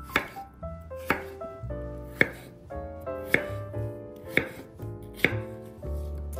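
Kitchen knife chopping peeled raw potatoes into cubes on a wooden cutting board: six sharp cuts, about one a second, each ending with the blade knocking the board. Background music plays underneath.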